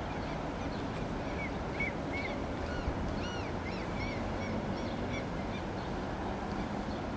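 A bird calling in a run of short, arching chirps between about one and five seconds in, over a steady outdoor background rumble.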